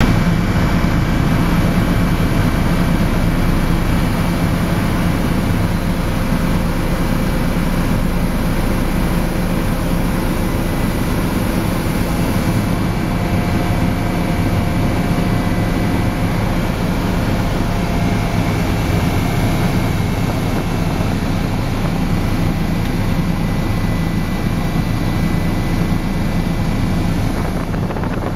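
Tour helicopter running steadily as it comes in to land: a loud, heavy low rotor and engine drone with a faint steady high whine over it, easing off slightly near the end.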